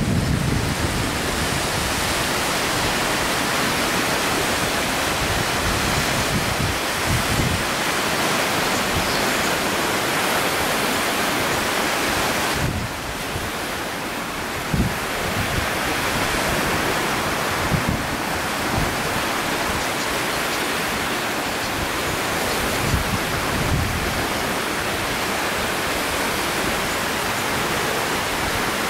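Steady rush of sea surf and wind, with a few brief low thumps of wind buffeting the microphone.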